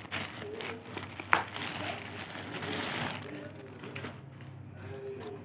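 Grey plastic courier mailer bag crinkling and rustling as a cardboard box is pulled out of it, with one sharp click about a second in. The rustling dies down to quieter handling of the box in the second half.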